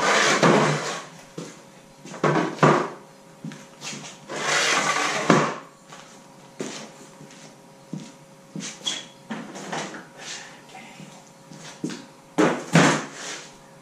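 Wooden stands being handled and moved on a concrete garage floor: scraping, knocks and clatter in several short bursts, over a faint steady hum.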